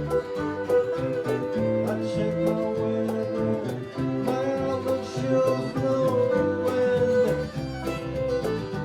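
Live acoustic country-bluegrass band playing an instrumental passage: fiddle holding long notes over strummed guitars, bass and steady percussion strokes.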